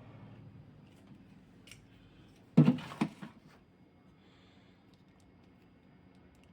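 A few light clicks, then two sharp knocks about half a second apart and a softer one just after: small tools or phone parts handled on a work surface during a repair.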